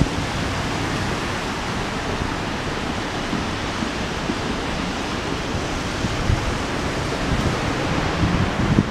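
Steady rushing background noise of a busy street, even and unbroken, with a few faint knocks near the end.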